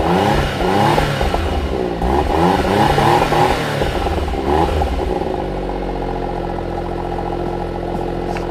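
Suzuki Cappuccino's small turbocharged three-cylinder engine being blipped, revving up and down about once a second, then settling into a steady idle about five seconds in.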